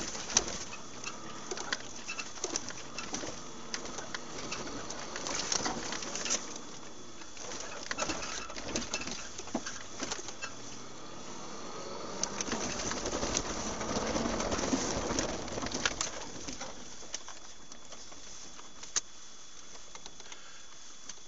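Irregular clicks and rattles inside a moving vehicle's cab, with a muffled wavering sound that swells for a few seconds past the middle.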